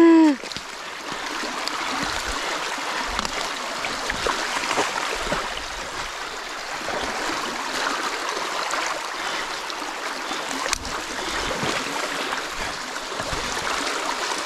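Creek water rushing and gurgling through the gap torn in a beaver dam, a steady flow with small splashes, and one sharp click about eleven seconds in.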